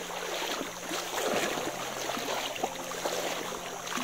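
River water sloshing and splashing around someone moving through it, a little louder about a second in, over a faint steady low hum.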